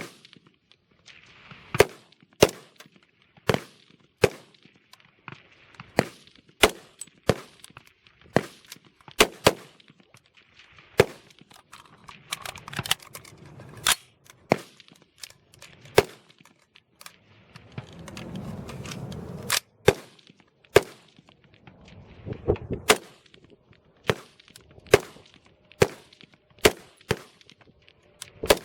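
Rapid-fire string from AR-15 service rifles in 5.56 mm on a highpower firing line: sharp shots of differing loudness at irregular spacing, often two or three within a second, from several rifles firing at once. A low rumbling noise comes in briefly about eighteen seconds in.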